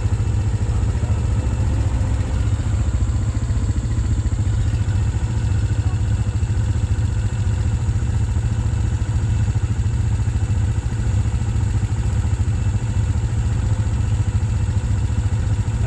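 Single-cylinder four-stroke ATV engine idling steadily at close range, a low even drone with no revving.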